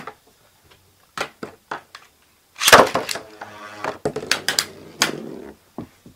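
Clicks of a Beyblade launcher being readied, then a loud zip of the ripcord launch a little past two and a half seconds in. Metal Fight Beyblade tops then spin with a whirr and clack against each other and the plastic stadium for a couple of seconds before stopping.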